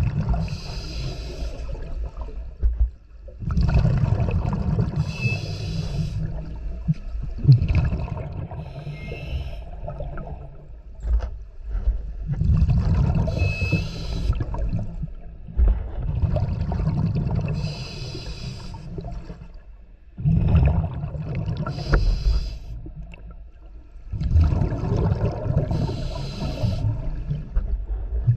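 Scuba diver breathing through a regulator underwater: a hissing inhale alternates with a rumbling, gurgling rush of exhaled bubbles, one breath every four to five seconds.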